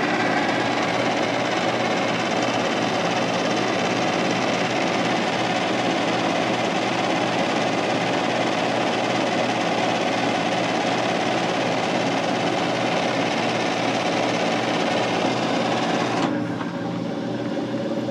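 Manual metal lathe running steadily, with a threading-insert tool cutting the threaded end of a spinning shock shaft. About sixteen seconds in the sound drops to a quieter, steady running as the tool comes off the work.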